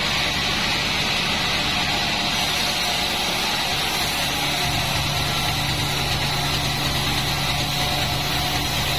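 Sawmill band saw machine running steadily, a continuous mechanical hum with a hiss over it. Its low note shifts slightly about halfway through.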